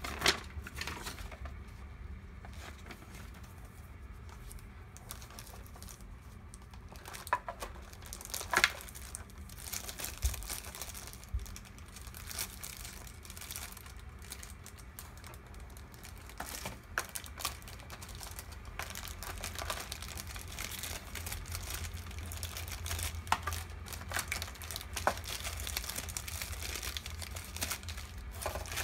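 Plastic packaging being handled: clear plastic bags crinkling and a thin plastic blister tray clicking and tapping, in scattered bursts that grow busier over the second half.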